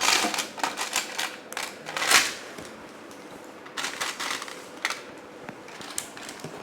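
Small plastic LEGO pieces clicking and clattering as they are handled, with a louder clatter about two seconds in and sparser clicks after.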